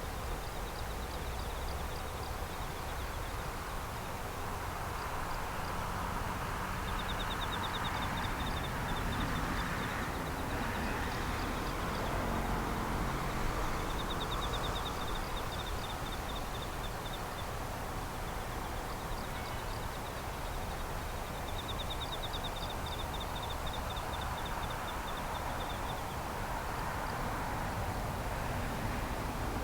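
Night outdoor ambience: insects chirping in repeated fast pulsing trills, several seconds each, over a steady low hum of distant traffic and city noise that swells a little now and then.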